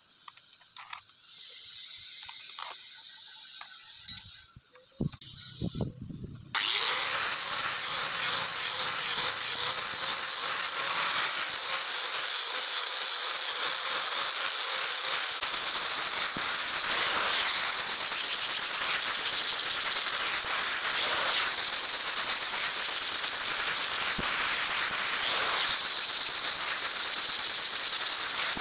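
Handheld angle grinder with an abrasive disc grinding the edge of a forged steel knife blade: a steady, high-pitched grinding hiss that starts suddenly about six seconds in. Before it, small clicks and knocks as the disc is fitted and its flange nut tightened.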